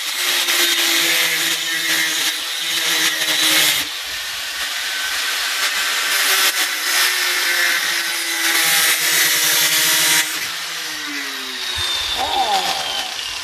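Electric angle grinder cutting into a steel motorcycle frame: a harsh grinding hiss over the motor's whine, loudest in two long spells while the disc bites. Near the end the grinder winds down with a falling whine.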